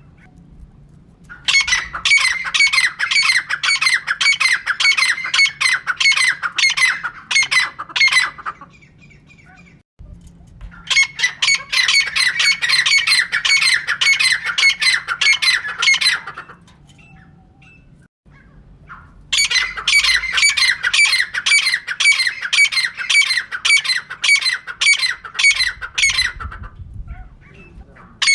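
Female teetar (francolin) calling: three long bouts of rapid, harsh, repeated notes, each several seconds long, with short pauses between them. This is the call played as a lure to draw in teetar.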